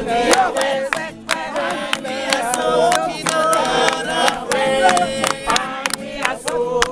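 A crowd of mourners, men and women, singing a hymn together, with steady hand claps keeping time.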